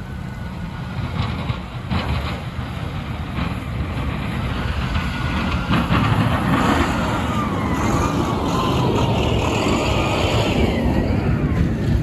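Snowplow dump truck approaching and passing with its plow blade down pushing snow, its engine growing louder over the first half. A whine falls in pitch as it goes by.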